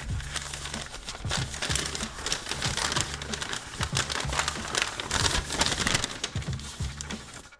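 Crinkling and crackling of plastic packaging around trading cards being handled and opened, over background music.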